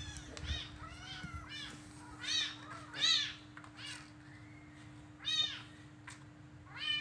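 Young kittens mewing: about seven short, high-pitched meows at irregular intervals, over a faint steady hum.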